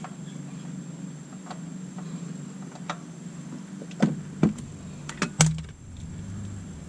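Sharp clicks and knocks of hand tools and parts while an oil filter is being worked off, a few scattered, then a cluster of louder knocks about four to five and a half seconds in, over a steady low hum.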